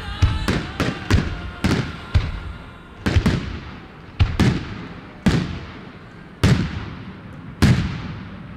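Aerial firework shells bursting: a quick volley of sharp bangs in the first two seconds, then single reports about a second apart, each trailing off.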